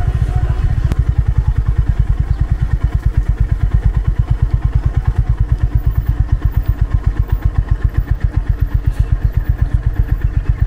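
Motorcycle engine running steadily at low road speed, heard from on board the bike, with an even, rapid beat.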